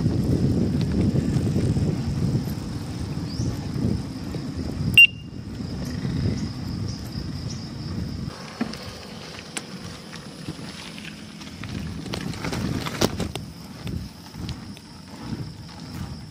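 Wind on the microphone and road rumble from riding along a paved road, heavier in the first half and lighter later on. A sharp click about five seconds in is the loudest moment, with a smaller click later.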